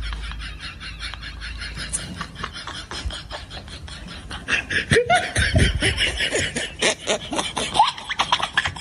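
People laughing hard: a rapid, rhythmic cackle that grows louder and higher-pitched about five seconds in.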